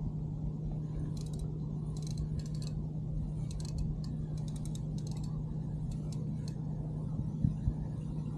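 Spinning reel clicking in short, rapid bursts while a hooked fish is played on the rod, over a steady low hum. Two dull knocks near the end.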